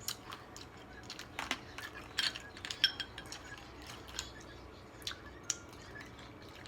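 Eating a seafood boil: irregular cracks and clicks of shells and utensils, busiest about halfway through, with one short ringing clink.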